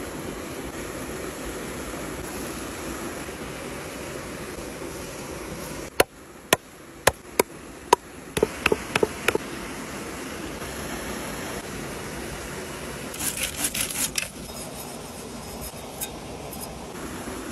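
Steady rush of a stream or small waterfall. About a third of the way in come five sharp wooden knocks on a wooden chopping board, then a quick flurry of lighter knocks. Later there is a short run of crisp high clicks as a knife works a green stick.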